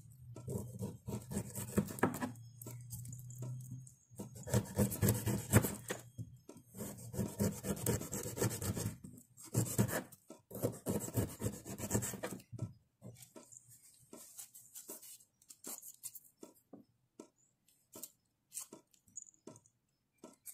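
Kitchen knife slicing the rough skin off small pineapple pieces on a plastic cutting board: rasping, scraping strokes for about twelve seconds, then scattered short clicks.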